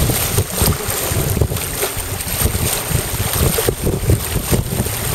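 Wind buffeting the microphone in irregular gusts over the rush and slap of choppy water around a boat under way.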